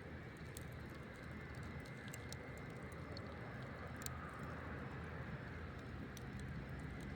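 Campfire burning: a steady low rumble with scattered sharp crackles and pops.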